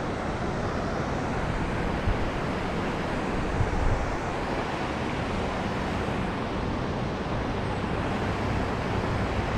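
Steady rushing outdoor noise of wind buffeting the microphone over the sound of the flowing river.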